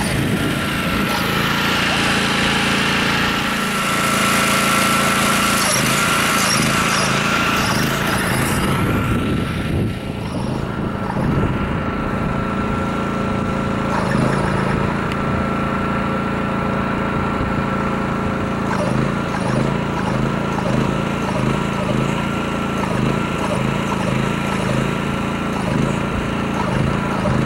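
Lure-coursing machine's motor running steadily as it drags the lure around the course, with a steady high whine that starts to waver in pitch after about 19 seconds.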